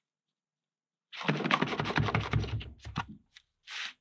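Rapid clicking and rattling of a plastic mold being worked as wet concrete is packed into it, starting about a second in and lasting about a second and a half, then a few single clicks.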